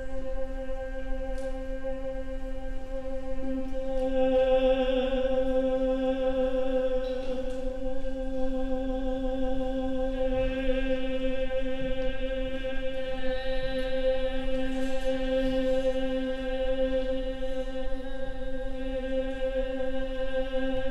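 Vocal ensemble with chamber orchestra holding a chant-like drone on one low note. Higher tones swell in about four seconds in and again around ten seconds, over the steady held pitch.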